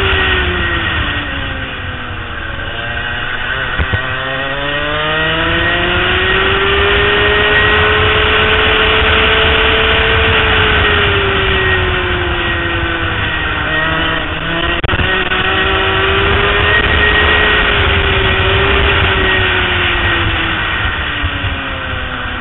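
Racing go-kart engine heard from on board at speed, its pitch falling and climbing again as the revs drop and build: it falls about two seconds in, climbs to a high steady note, drops again past the middle, rises briefly and falls once more near the end.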